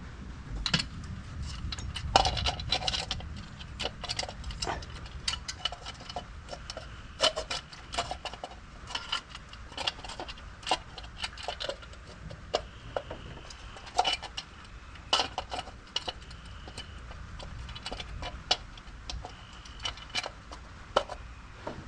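Irregular clicks, taps and small metallic clinks of hands handling tools and engine parts, over a low steady background rumble.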